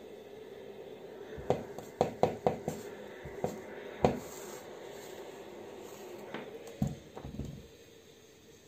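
A clothes iron set down and pushed over a cotton hat brim on a table: a run of sharp knocks between about one and a half and four seconds in, over a faint steady hum, then a few softer handling thumps near the end.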